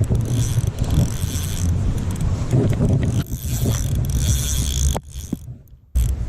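Low rumbling wind buffeting the microphone outdoors, dropping away to almost nothing for about a second near the end before returning.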